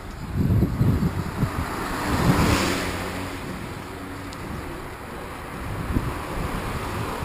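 Wind buffeting the microphone of a camera riding on a moving bicycle, with uneven low rumbling gusts. A rushing noise swells and fades about two to three seconds in.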